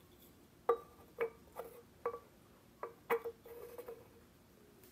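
An emptied drink can being handled and set down on a wooden table: about six sharp, short ringing knocks over three seconds, then a brief run of lighter clinks.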